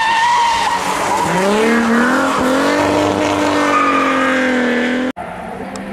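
Rally car taking a hairpin, with a tyre squeal at the start, then its engine revving hard as it accelerates out, the pitch climbing about a second in and staying high. The sound breaks off abruptly near the end.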